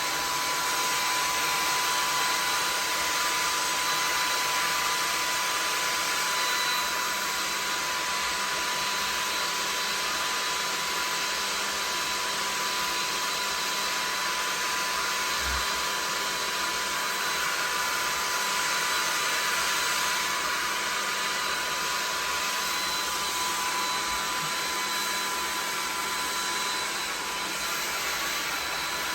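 Handheld hair dryer blowing steadily on a wet wig: a constant rushing hiss with a thin steady whine.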